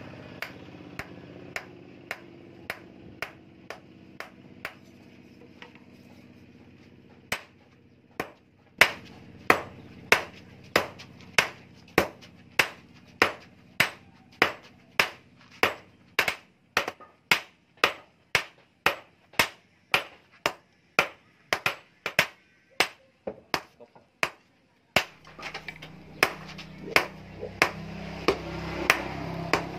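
Hand hammer striking red-hot rebar steel on a steel stake anvil, the blows coming at a steady pace of about two a second. The blows are light at first, pause briefly, and come much harder from about a quarter of the way in. After a short break near the end they resume over a low hum.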